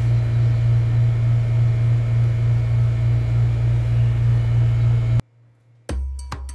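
A loud, steady low machine hum with a faint hiss over it, cutting off abruptly about five seconds in. After a short silence, music with drum and wood-block beats starts near the end.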